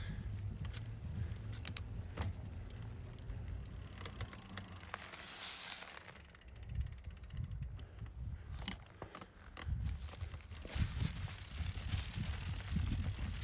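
Mountain bike ridden over a rough trail: chain and frame rattling over bumps, with the freewheel hub ticking rapidly while coasting about halfway through, over a low wind rumble on the microphone.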